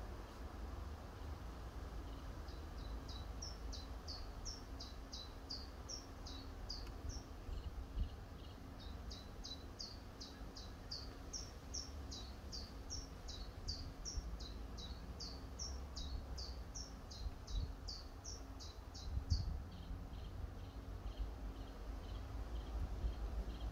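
A songbird singing a long run of short, high, downward-slurred notes at about two or three a second, with a brief pause about seven seconds in, stopping about nineteen seconds in. Underneath runs a steady low rumble.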